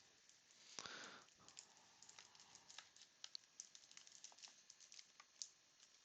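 Faint handling noise of wax-wrapped baseball card packs being lifted out of their box and set down: a brief rustle about a second in, then scattered light clicks and taps.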